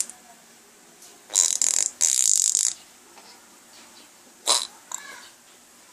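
A man's imitation fart noise, two rasping bursts together lasting about a second and a half, starting a little over a second in. Near the end come a couple of brief vocal sounds from the baby.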